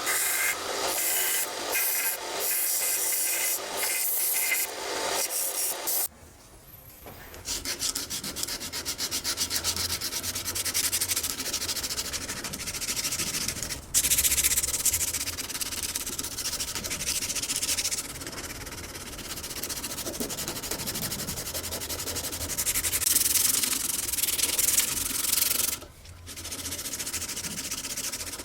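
Sandpaper rubbing back and forth in quick, even strokes during hand sanding, with a few sudden breaks where the sound cuts off and resumes.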